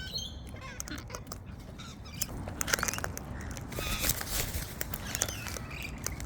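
White cockatoos' beaks working close to the microphone: scattered clicks and crunches of birds feeding, with a few short soft chirps.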